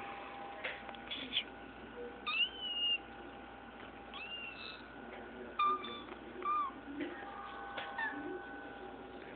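Kitten meowing: about four short, high-pitched meows with a slight fall in pitch, spread over a few seconds.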